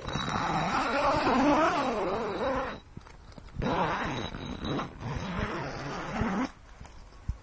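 Two long, wavering animal cries, the pitch sliding up and down, with a short break between them about three seconds in.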